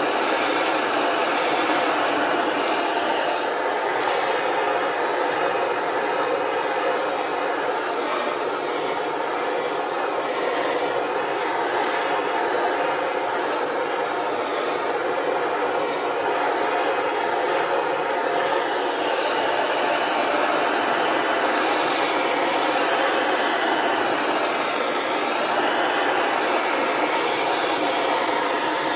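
Gas blowtorch flame hissing steadily while it heats the bottom of an upside-down motorcycle fork, so that the threaded chrome stanchion can be unscrewed.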